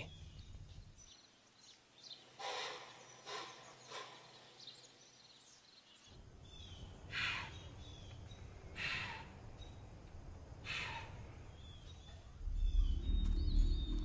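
White-tailed deer giving short breathy chuffs: three in quick succession a few seconds in, then three more about two seconds apart. Faint birdsong behind, and a low rumble rising near the end.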